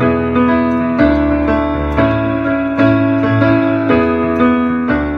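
Piano or keyboard playing the closing chords of a pop-song accompaniment, a new chord about once a second, with no voice, dying away at the end.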